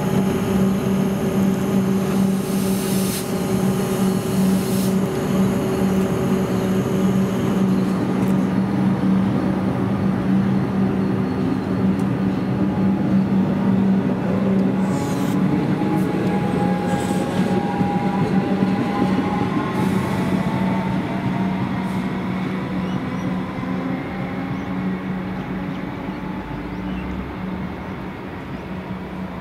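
Comeng electric multiple-unit train pulling away, a steady hum under a traction-motor whine that rises in pitch as it gathers speed, with a few sharp clicks. The sound fades away over the last third.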